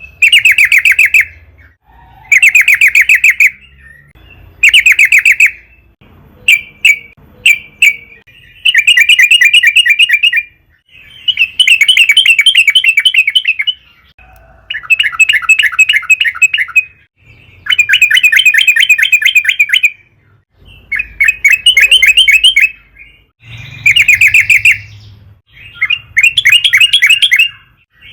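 Yellow-vented bulbul (trucukan) singing loudly in repeated bursts of rapid bubbling chatter, each burst one to three seconds long with short pauses between.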